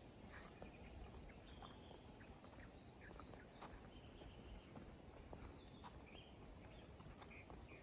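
Near silence: quiet outdoor ambience with faint scattered short chirps and ticks.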